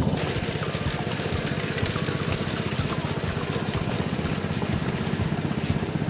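Small engine running steadily at a constant speed, with a fast, even beat.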